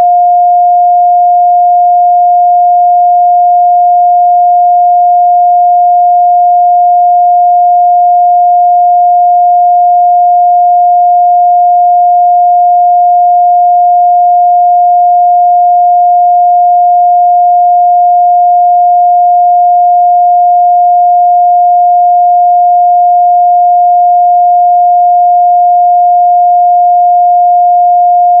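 A steady, loud 708 Hz sine-wave test tone, one pure pitch held unchanged, used for checking the midrange response of speakers and headphones.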